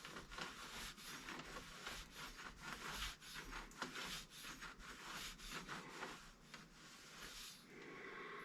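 Irregular rubbing or scrubbing strokes, a few per second, against a hard surface, easing off near the end.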